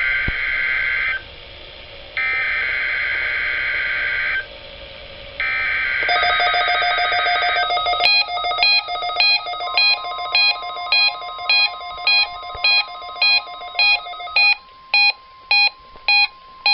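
NOAA Weather Radio weekly test signal through a Midland WR300 weather radio: three harsh warbling digital header bursts of about two seconds each with short gaps. About eight seconds in, the radio's alert starts beeping at about one and a half beeps a second, and a steady warning alarm tone comes in under the beeps near ten seconds in.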